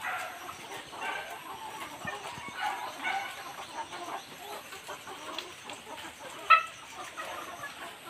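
A flock of caged chickens clucking and calling in short, scattered calls, with one sharper, louder call about six and a half seconds in.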